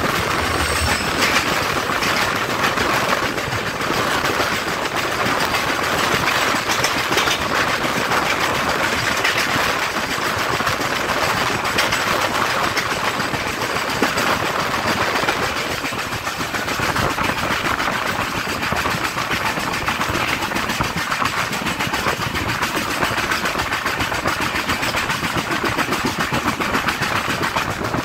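Two passenger trains passing each other close on adjacent tracks: a steady rushing rattle of the oncoming coaches going by, over the wheel clatter and wind of the train being ridden.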